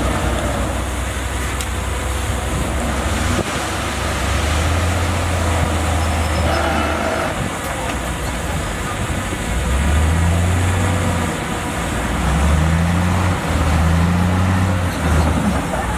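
Heavy earthmoving machine's diesel engine running. Its deep note swells louder in several stretches, about four times.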